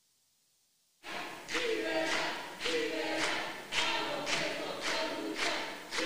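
A group of people chanting in unison in a rhythmic cadence, with a strong accent about twice a second. It starts abruptly about a second in, after silence.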